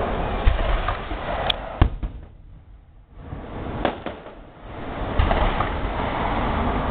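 Aerial fireworks shells bursting in quick succession: low booms with sharp cracks, the loudest crack just under two seconds in. A short lull follows around the third second, then another dense volley from about five seconds.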